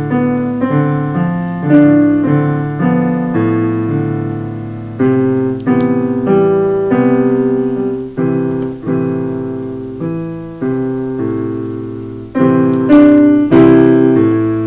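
Background piano music: a slow run of chords and single notes, each struck and fading away.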